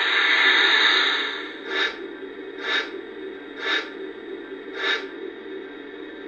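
Lionel Norfolk & Western Y6b model steam locomotive's sound system: a long steam hiss for about a second and a half, then four slow steam chuffs about a second apart over a steady hum.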